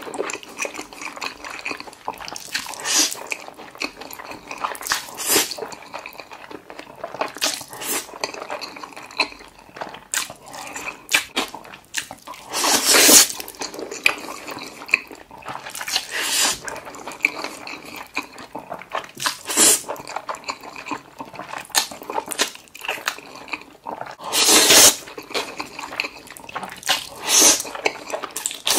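Wet slurping of saucy black-bean noodles (jjajangmyeon) being sucked into the mouth, with smacking, squelching chewing in between. Half a dozen big slurps stand out, the loudest about halfway through and again near the end.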